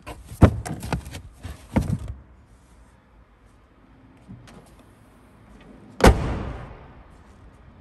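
Boot floor panel and trim handled with a quick run of knocks and rustles, then the Seat Ibiza's hatchback tailgate shut with a single loud slam about six seconds in.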